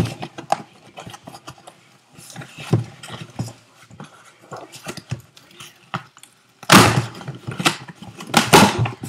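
A small cardboard shipping box and its plastic wrapping being torn open by hand: scraping, rustling and clicking, with two loud tearing rips near the end.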